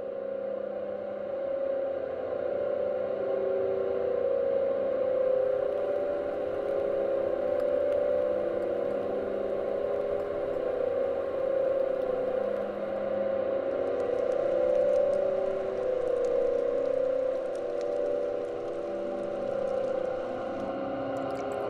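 Ambient drone music: several held tones that change slowly every few seconds, with faint crackling from about two-thirds of the way in.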